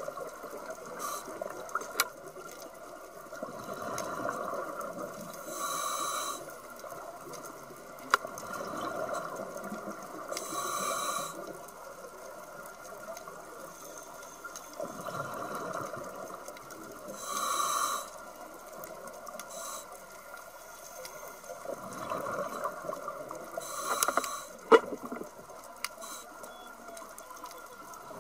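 Scuba regulator breathing heard underwater: a short hiss of inhalation every five to seven seconds, with rumbling bursts of exhaled bubbles in between. A few sharp clicks stand out.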